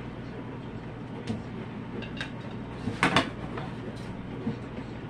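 Scissors snipping through a thick plastic template sheet: a handful of short sharp cuts, the loudest a quick double snip about three seconds in, over a steady low hum.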